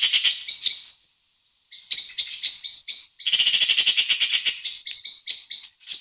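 Eurasian magpie chattering: rapid runs of harsh notes, about ten a second, broken by a pause about a second in and a short break near the three-second mark.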